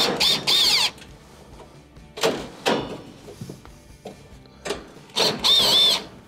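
Cordless drill/driver whirring in two short bursts as it backs out Phillips screws from a range's sheet-metal back panel, once at the start and again about five seconds in, with a couple of knocks from the panel in between.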